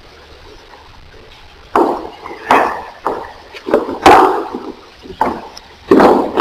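A series of about seven sharp thuds at uneven intervals, beginning about two seconds in, each with a short ringing tail.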